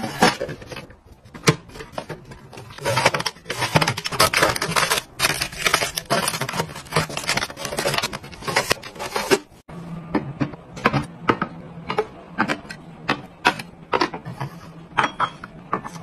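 Hands arranging plastic storage bins, drink bottles and packets on cabinet shelves: a busy run of clicks, taps and rustles through the first half, then separate sharp clicks and taps.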